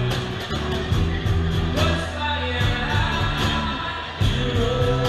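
Live rock band playing a cover: electric guitar, bass line and drums with a regular beat, and a singer's voice over them.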